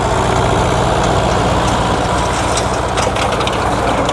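Vintage tractor engine running steadily while it works old haymaking machinery, with light ticks or rattles in the second half.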